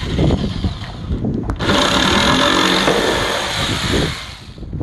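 Corded electric jigsaw sawing through a coated plywood board, cutting a handle hole. A short first cut breaks off a little over a second in, then a longer steady cut stops shortly before the end.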